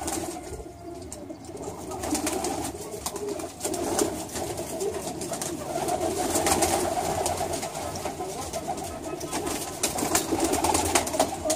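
A flock of domestic pigeons cooing together in an enclosed loft, a continuous low murmur, with many short sharp clicks scattered through it.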